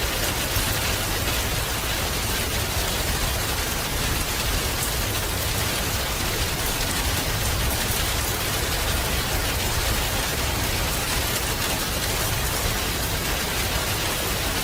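Steady rain falling on a surface, an even hiss with a low rumble underneath and no breaks.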